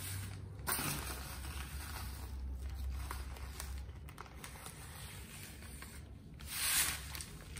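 Sand being poured from a package into a plastic rice-bag liner, with the plastic crinkling and rustling; a louder rustle about a second in and again near the end.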